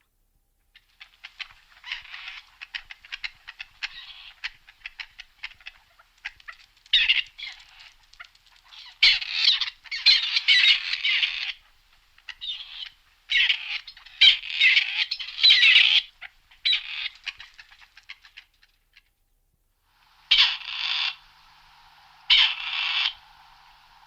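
Grey partridge calling: a long run of rapid, short, rasping notes that come in louder clusters, then two separate loud calls about two seconds apart near the end.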